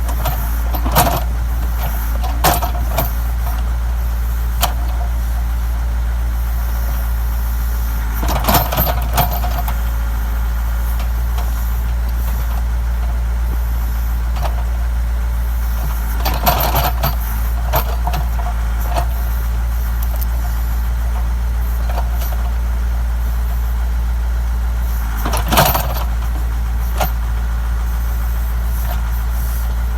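Backhoe engine running steadily with a deep drone, broken three times by short, louder clatters.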